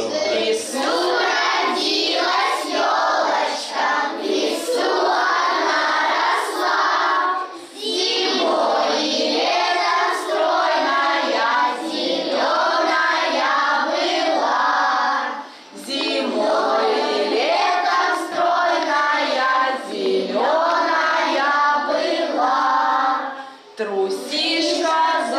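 A group of young children singing a song together, in phrases of about eight seconds with short pauses between them.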